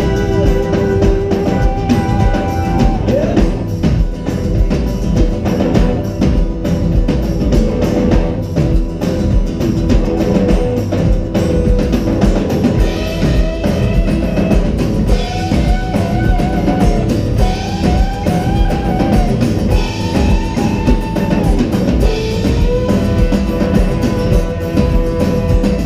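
Live rock band playing through stage speakers: drum kit, bass and guitars, with a lead line of held notes that bend up and down over the steady beat.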